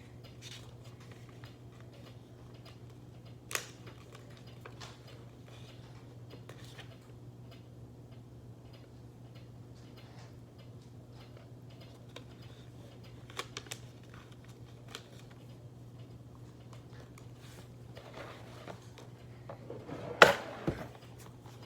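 Scattered small clicks, taps and rustles of hands handling paper and string over a steady low hum, with a sharper click a few seconds in and a louder knock near the end.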